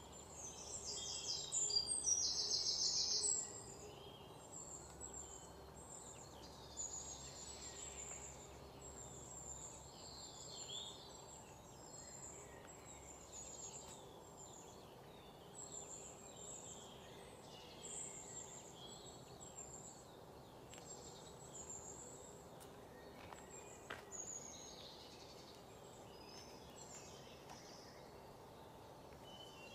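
Birds chirping and calling again and again over a steady low background hiss. A loud, rapid trilling call stands out from about one second in, lasting about two seconds.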